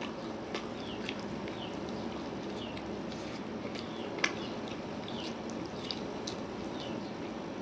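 Close-miked eating: wet mouth and finger sounds as a person tears meat from a curried chicken leg and bites into it, with a sharp click a little past four seconds in. Short high falling chirps repeat throughout over a steady low hum.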